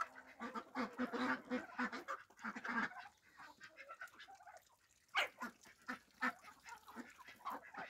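A backyard poultry flock calling: a string of short, repeated clucks and squawks, with a lull a little past halfway and a few sharp taps just after it.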